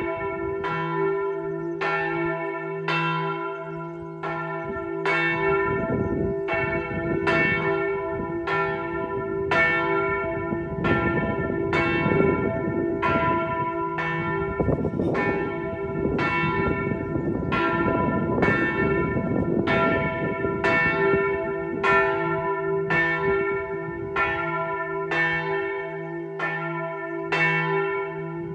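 The largest bell of a six-bell ring in E3, a bronze bell cast by Rafanelli of Pistoia, swinging full circle ('a distesa') and striking about once a second, each stroke ringing on into the next: the weekday midday ringing.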